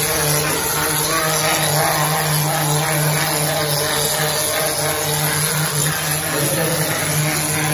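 Mortar spraying machine running steadily, a low motor hum under an even hiss as plaster mortar is sprayed from the hose-fed gun onto a brick wall.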